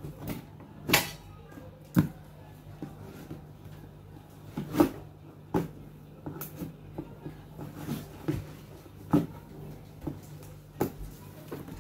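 Cardboard toy box and its packaging being handled and opened: scattered clicks, taps and knocks, about one every second or so, over a steady low hum.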